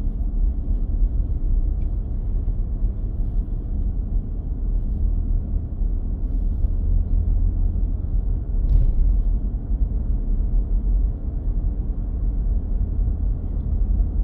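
Steady low road rumble and tyre noise heard inside a moving car, with one brief click about nine seconds in.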